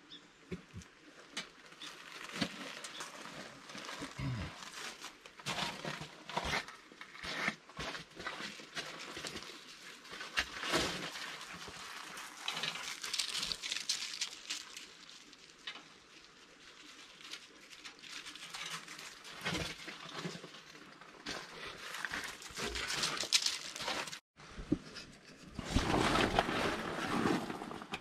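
Hand work on a mini excavator's panels: irregular rubbing, scraping and rustling with scattered clicks and knocks, louder near the end.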